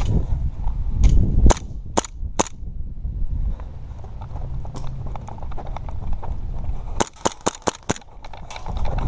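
Airsoft pistols firing: four single sharp shots in the first two and a half seconds, then a rapid string of about seven shots around seven seconds in.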